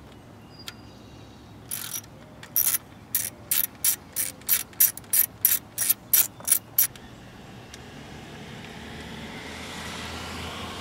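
Ratchet socket wrench being swung back and forth to back out a distributor cap screw. Its pawl clicks in quick bursts, about three a second for some five seconds, then stops.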